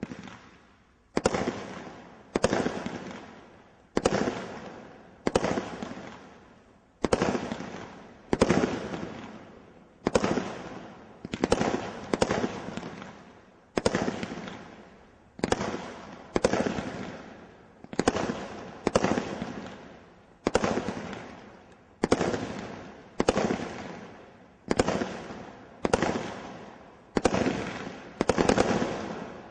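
A 24-shot firework cake firing a steady barrage of about twenty-two shots, one every one to two seconds. Each sharp bang trails off in about a second of fading hiss.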